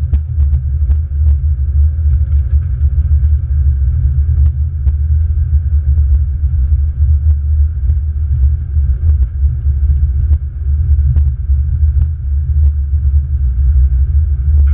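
Deep, steady rumble of an Airbus A330-200 rolling along the runway after landing, heard inside the cockpit, with frequent light knocks.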